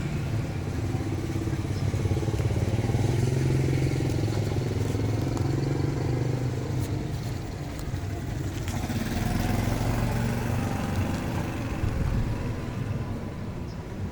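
A motor vehicle's engine running with a low, steady hum that eases off about halfway through, swells again and fades toward the end.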